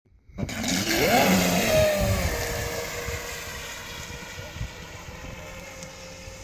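Delta Force RC speedboat's motor whining as it launches. The whine rises sharply about a second in, then holds steady over the hiss of spray and fades as the boat speeds off.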